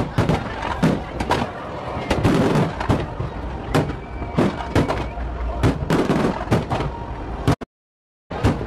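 Fireworks display: a rapid, irregular string of bangs and crackles from bursting shells, several a second. The sound cuts out completely for under a second near the end, then the bangs resume.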